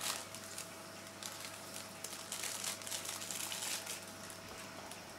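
Thin plastic bag crinkling faintly as it is squeezed and shaken to pour dry decapsulated brine shrimp eggs into a small glass jar.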